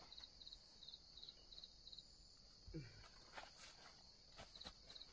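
Faint chirping of crickets, short pulses repeating about three times a second over a steady high insect drone, with a few soft clicks and one brief low sound near the middle.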